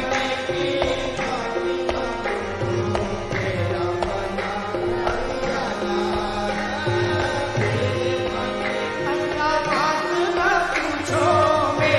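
Qawwali music: a steady tabla rhythm under sustained harmonium notes, with singing.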